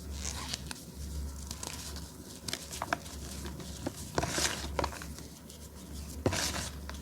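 Reformed gym chalk topped with cornflour being crushed by hand: soft crumbling and crackling with squeaky creaks, small sharp clicks, and three longer powdery crunches, about half a second in, past the middle, and near the end.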